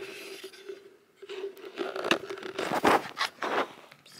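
Rustling, scraping handling noise close to the microphone in several short bursts, loudest a couple of seconds in, over a faint steady hum.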